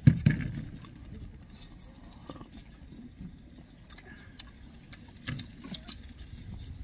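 Two people eating in a car: chewing and mouth sounds, with scattered light clicks of wooden chopsticks and plastic takeout bowls. A loud, short, low sound comes at the very start.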